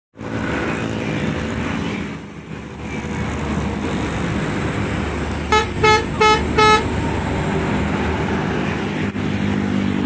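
Harapan Jaya bus's telolet horn sounding four short blasts in quick succession a little past halfway, over the steady rumble of the bus engine and road traffic.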